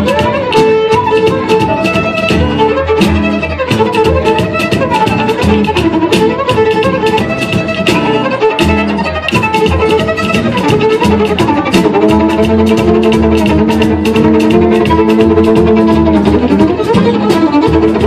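Amplified violin bowing a melody with sliding notes, over a steady beat and a low bass line.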